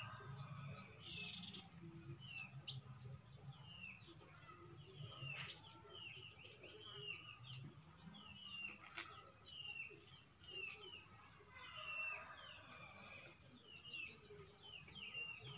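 A bird chirping over and over in short falling calls, with a few sharp clicks from hand work on the seedling.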